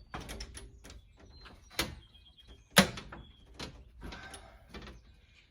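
A flexible Flexscreen frame being worked into a storm door's track: a run of irregular clicks, knocks and rattles, with one sharp knock about three seconds in.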